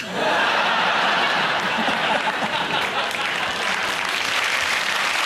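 Studio audience applauding, breaking out suddenly as a joke ends and holding steady.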